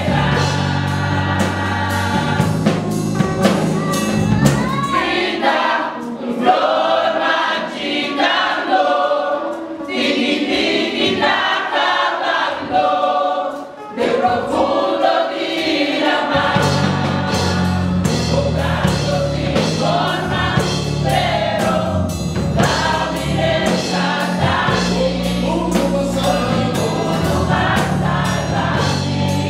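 Choir singing a gospel hymn with instrumental accompaniment. The bass drops out for about ten seconds partway through, then comes back in.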